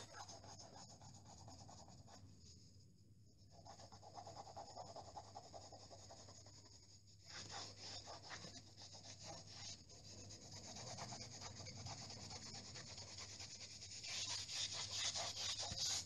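A cloth rubbing back and forth on a painted wall, scrubbing at a mark in quick strokes with short pauses. The rubbing is loudest near the end.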